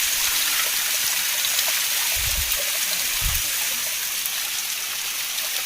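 Water falling down a rocky hillside waterfall with only a small flow, a steady rushing hiss. Two brief low thumps come about two and three seconds in.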